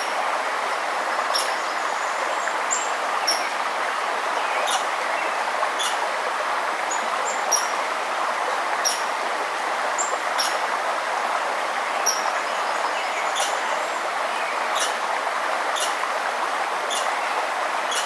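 Steady rush of flowing river water, with a small bird giving short, high chirps about once a second over it.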